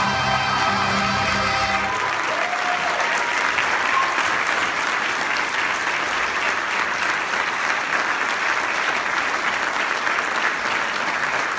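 The last held chord of a vocal performance with accompaniment ends about two seconds in, and the audience breaks into steady applause.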